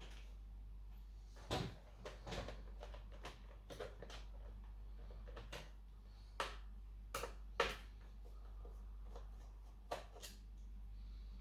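Scattered sharp clicks and light knocks of an HP 15 laptop's plastic case and parts being handled during disassembly, over a steady low hum.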